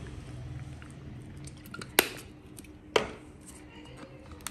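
Two sharp clinks of kitchen utensils against a dish, about a second apart, each with a short ring, as a spoon measures out soy sauce and vinegar.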